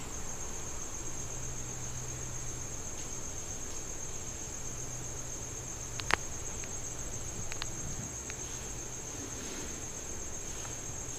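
Steady, high-pitched chirring of insects, with a low hum underneath and one sharp click about six seconds in.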